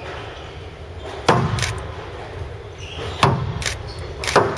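Squash rally: racket striking the ball and the ball hitting the court walls. There are five sharp knocks, three of them loud, each ringing on briefly in the hall.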